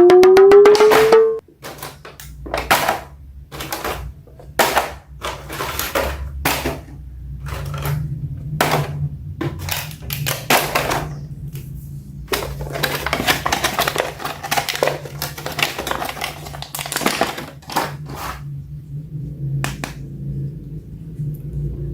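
A short rising electronic tone in the first second, then irregular clicks, taps and crinkly rustles of plastic toys and packaging being handled over a steady low hum.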